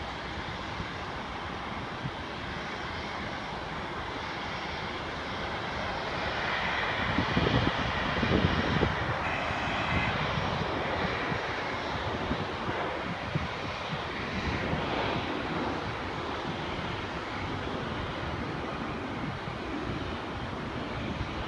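Jet airliner climbing out after takeoff. Its engine noise swells to a peak about eight seconds in, with a whine in it, then slowly fades as it climbs away.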